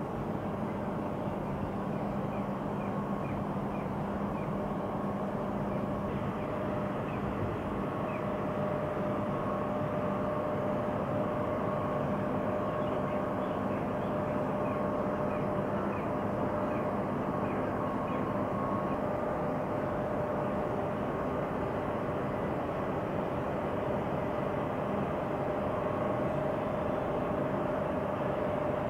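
Heavy industrial machinery of a coal-yard stacker-reclaimer running: a steady mechanical hum with a few held tones from its drives, and runs of faint, short, high chirps.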